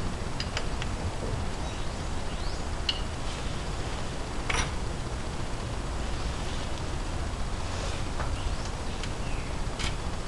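Light, scattered metallic clicks and a few short high squeaks over a steady low hum, as a rust-seized front spindle is worked off a Ford Ranger's front axle shaft by hand.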